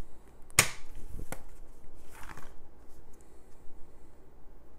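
Plastic Blu-ray case being handled and shut: a sharp click about half a second in, a lighter click shortly after, and a brief soft rustle of plastic near the middle.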